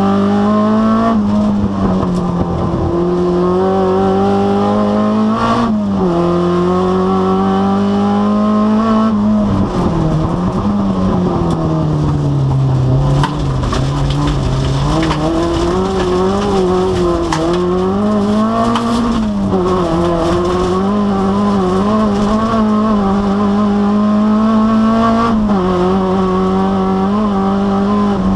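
Rally car engine at full race pace, heard from inside the cabin: its note climbs with the revs and drops sharply at gear changes, then falls away and builds again through the slower corners.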